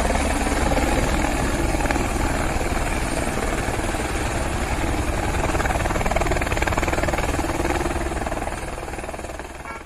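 Light single-engine helicopter running at full rotor speed as it lifts off, a dense steady noise with a rapid beat from the rotor blades. The sound fades away near the end.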